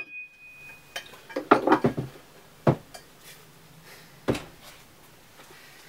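Metal clunks and clatter as a separated steel car tailshaft section and a hammer are handled and laid on a workbench. The ring of the last hammer blow fades in the first second, a cluster of knocks comes about a second and a half in, and single sharp knocks follow at about three and four seconds.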